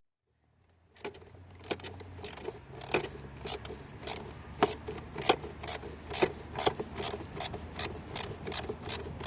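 A ratchet wrench clicking in a steady rhythm, about two clicks a second, over a low steady hum, as the replacement mass air flow sensor is fastened in.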